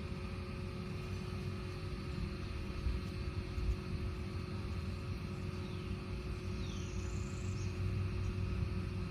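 A steady low rumble with a faint constant hum under it, and a few short high bird calls that slide downward, about five and a half and seven seconds in.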